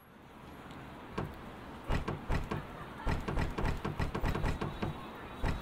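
A locked glass-and-metal entrance door being tried and shaken: a run of irregular clattering knocks and rattles that starts about a second in and lasts for about four seconds.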